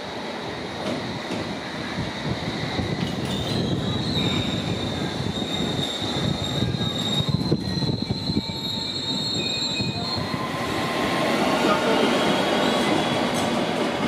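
London Underground S8 Stock Metropolitan line train running into the platform, giving a high-pitched squeal as it slows. About ten seconds in, the sound changes abruptly to a train pulling away, with a louder rumble of wheels and motors.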